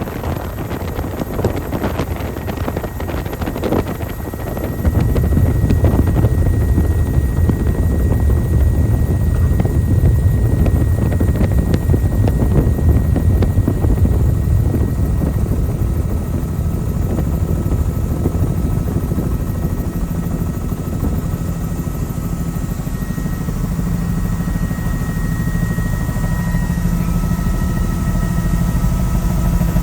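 A helicopter's rotor and engine running, heard from on board, with air rushing at first. The low rotor rumble grows louder about five seconds in and holds steady, with a faint steady whine later.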